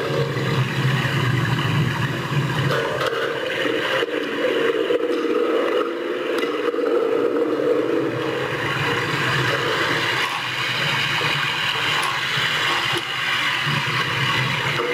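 Home-made rain and thunder sound effects played back from a small keyboard: a recorded water sound, made loud and pitched high, gives a continuous rushing noise, with a low rumble of thunder under it.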